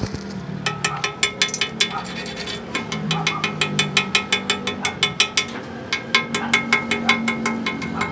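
Chipping hammer striking a fresh weld bead on a steel truck axle housing, knocking off the slag: quick ringing metal taps, about five a second, with a brief pause near the middle.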